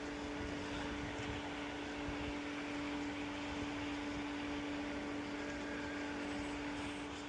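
Pool service pump running steadily while vacuuming the pool: a constant hum with one steady tone over an even hiss.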